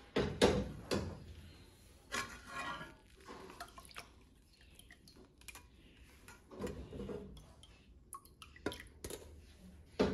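Scattered clinks, scrapes and knocks of a spatula working steeped sorrel in a stainless steel mesh strainer set over a metal pot, with the strainer knocking against the pot; the sharpest knocks come about half a second in and again near the end.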